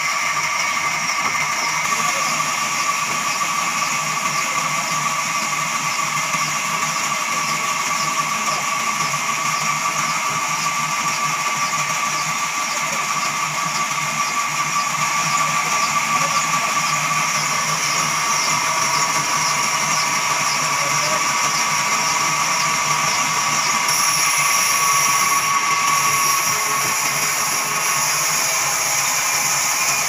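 Large sawmill band saw running as its blade cuts lengthwise through a big log: a loud, steady machine whine that holds throughout.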